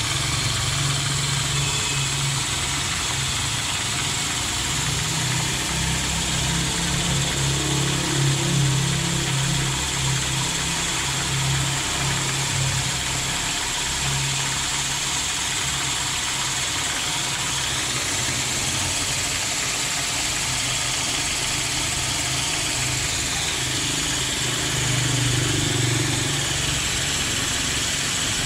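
A machine's steady low hum under a continuous hiss of running water from a hose.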